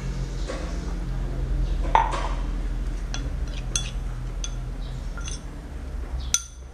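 A metal spoon knocking and clinking against a bowl and a drinking glass while hot water is spooned into oatmeal and stirred: one sharper knock about two seconds in, then several light clinks spaced under a second apart.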